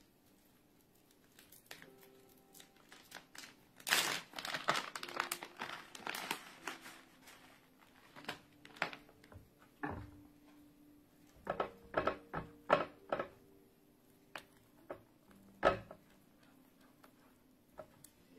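Plastic bag of shredded cheese crinkling as the cheese is shaken out into a pan of cheese sauce, followed by a silicone spatula stirring, with a run of sharp clicks and knocks against the pan.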